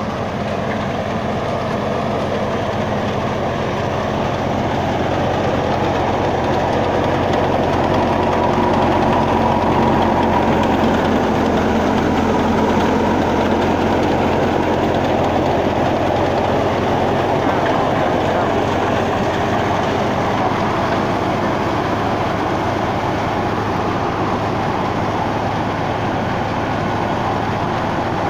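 Wheat thresher running steadily while being fed straw, belt-driven from a New Holland Ghazi 65 hp tractor's diesel engine working under load.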